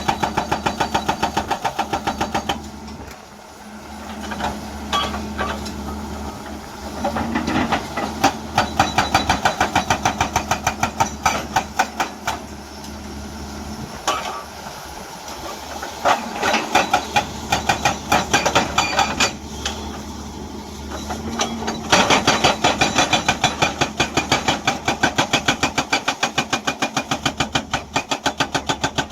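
Hydraulic breaker on a Hyundai excavator hammering rock in runs of rapid, evenly spaced blows that stop and start again several times, over the excavator's steady engine.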